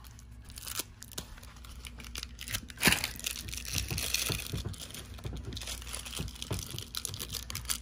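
Crinkling and tearing of the plastic packaging of an LOL Surprise doll as it is unwrapped by hand, with a sharper crackle about three seconds in.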